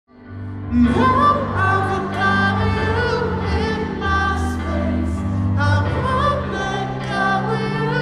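Live male pop vocalist singing into a handheld microphone over sustained low instrumental accompaniment, amplified through an arena sound system. The music fades in from silence over the first second.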